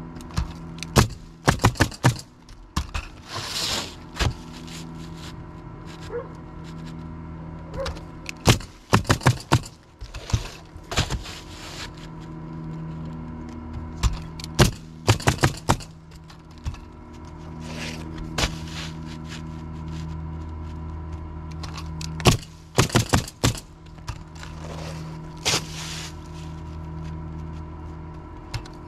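Pneumatic roofing nailer driving shingle nails in quick bursts of several shots, group after group, over a steady low hum. Two longer scraping hisses come in, about three seconds in and near the end.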